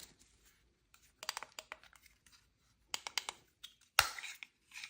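Hands handling a small plastic wireless doorbell chime and its packaging: scattered light clicks and taps, then a sharper knock about four seconds in followed by a brief crinkle.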